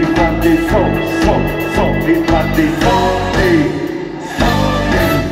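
Live band playing a song with singing and drums, ending on a final accented hit and held chord near the end.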